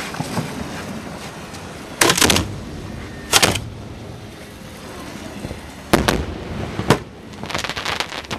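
Display fireworks going off close by: four sharp, loud reports spread over about five seconds, then a quick run of crackling bangs near the end.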